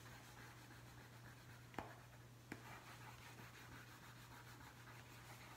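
Faint scratching of a wax crayon coloring back and forth on drawing paper, with two light ticks about two seconds in and half a second later.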